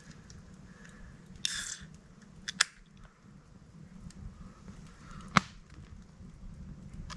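Campfire burning with faint crackle and two sharp pops from the burning wood, one about two and a half seconds in and a louder one about five and a half seconds in; a brief rustle comes shortly before the first pop.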